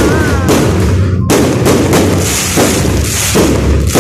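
Fireworks going off in a dense, continuous barrage: sharp bangs about two a second over a steady rumble, with a brief break about a second in.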